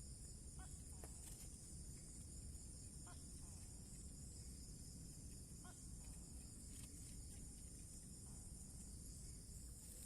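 Steady, high-pitched insect chorus over a low rumble. Three brief, faint chirps come about two and a half seconds apart.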